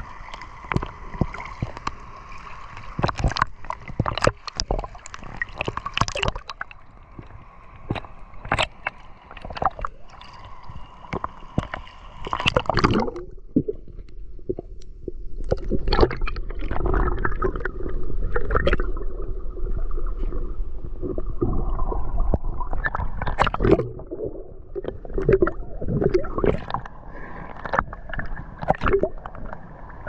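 Sea water lapping and splashing against a waterproof action camera at the surface, then, about halfway through, the sound turns muffled with gurgling and bubbling as the camera goes underwater.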